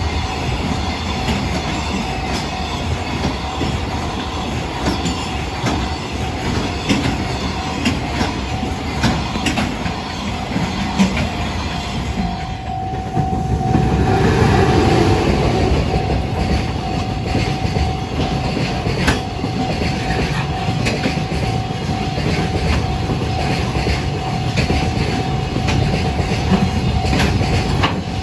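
Container freight trains passing over a level crossing, their wheels clattering over the rail joints. About twelve seconds in the sound dips briefly, then a second freight train led by an electric locomotive passes closer and louder, with a steady tone from then on.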